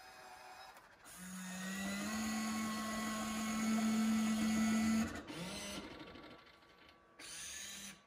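Electric motor and gearing of a Honnama Robokko beer-serving robot refrigerator whirring as it raises the mechanism under its clear dome. The hum starts about a second in, steps slightly higher in pitch about two seconds in, and stops about five seconds in, followed by shorter runs.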